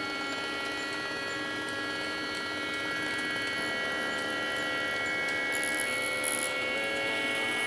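The stepper motors of an Arduino-controlled camera slider and follow-focus rig running at constant speed, giving a steady electric whine of several pitches held level.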